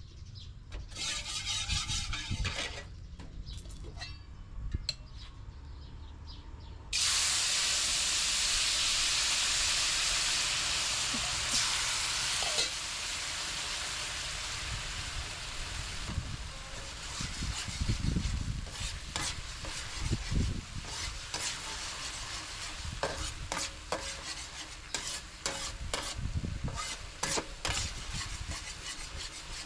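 Food frying in a hot pan. About a quarter of the way in, a loud sizzle starts suddenly and eases after a few seconds. The sizzling then carries on under repeated scraping and clicking of a utensil stirring the pan.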